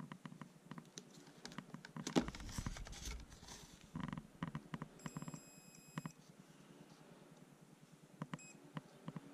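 A multimeter's continuity buzzer gives one beep about a second long, about five seconds in, and a short beep near the end. The beep means the meter has found an electrical connection between the probe points on the rails. Around it are light clicks and scrapes of the metal probe tips tapping along the rails of an N scale track switch.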